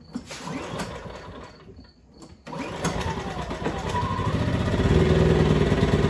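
Propane-converted Powerhorse 2000 inverter generator starting on its electric starter: after about two seconds of cranking the engine catches about 2.5 s in, picks up speed and settles into steady running by about 5 s, running on propane through the conversion kit.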